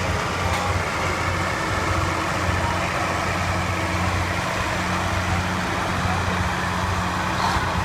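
Semi truck's diesel engine idling steadily, holding an even low note with no revving.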